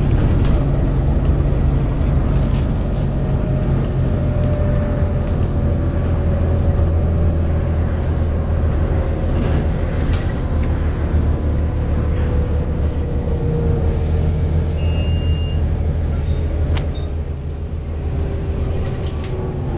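Bus engine and transmission running under way, a steady low drone with a whine that slowly falls in pitch as the bus slows. A short high beep sounds about three quarters of the way through, and there are a few light knocks.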